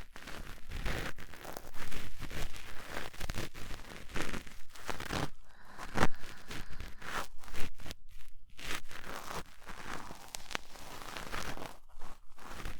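Cotton swab rubbing and scraping in the ear of a 3Dio binaural microphone, an irregular run of close, scratchy rustles.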